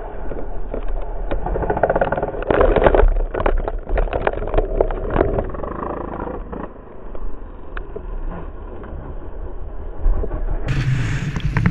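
Dirt bike engine running under throttle, heard from the rider's helmet camera, mixed with wind buffeting and rough knocks on the microphone, busiest in the first half.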